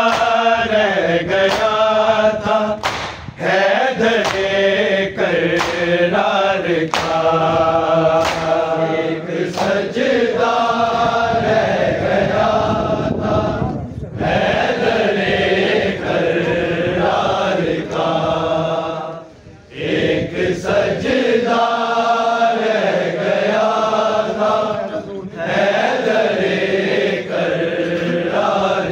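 Male voices chanting a noha, an Urdu Shia mourning lament, in long sung phrases with brief breaks between lines and a few sharp clicks.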